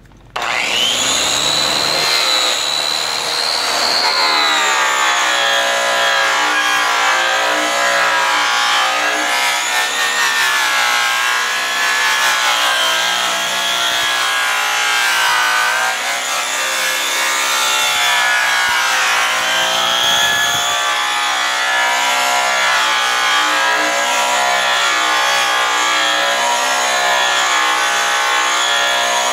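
A 6000 RPM grinder fitted with a Keystone buffing wheel starts about half a second in and spins up with a rising whine. It then runs steadily as the buff polishes the aluminum fuel tank's end cap, its pitch wavering as the wheel is pressed against the metal.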